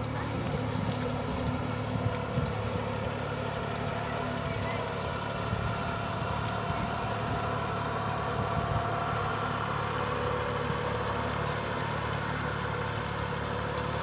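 Two-wheel walking tractor's engine running steadily as it works through a flooded rice paddy, an even low drone with no change in speed.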